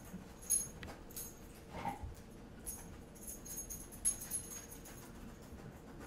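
Dog's metal collar tags jingling in short, irregular clinks as the dog moves about nose-down, searching for hidden treats.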